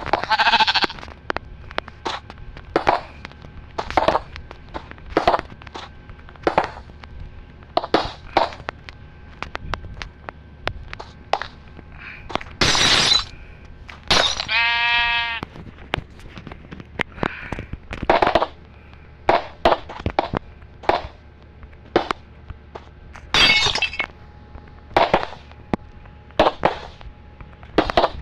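Construction work: irregular knocks and bangs of impacts on building material, with a harsh burst of noise about halfway through and a short pitched squeal just after it.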